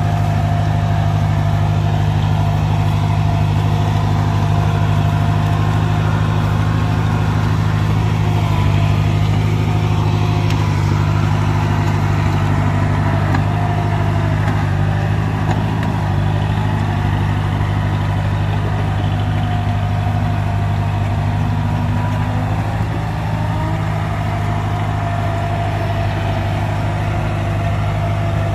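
Kubota DC70 combine harvester's diesel engine running steadily at constant speed, an even low drone that holds throughout.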